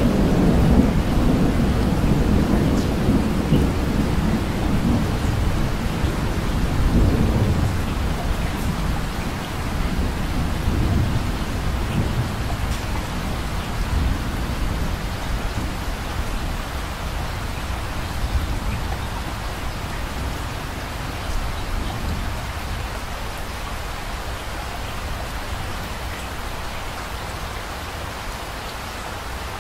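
Steady rain with rolling thunder: a deep rumble swells at the start and again about seven seconds in, then dies away about twelve seconds in, leaving the even hiss of rain alone, slowly getting quieter.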